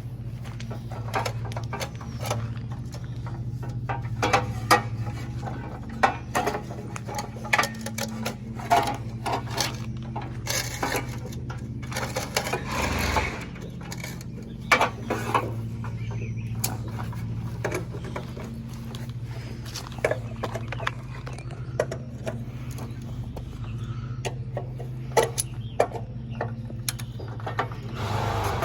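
Irregular clanks and knocks of steel parts and hand tools being handled and fitted, over a steady low hum.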